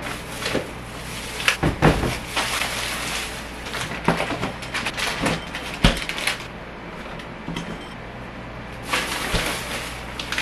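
Plastic grocery bags rustling and crinkling as groceries are unpacked, with a few sharp knocks of items being handled and set down and the refrigerator door being opened.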